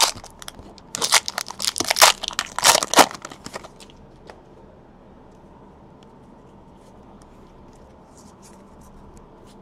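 A foil trading-card pack wrapper being torn open and crinkled in a quick run of loud crackling rips over the first few seconds. Then it goes quiet apart from faint light ticks as the cards are handled.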